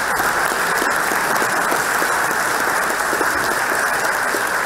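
Large audience applauding steadily, a dense crackle of many hands clapping.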